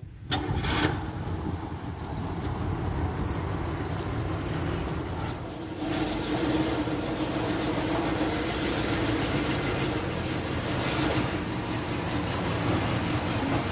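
A 1972 Buick Skylark's engine running steadily at low speed as the car creeps toward the garage. The engine gets a little louder about six seconds in.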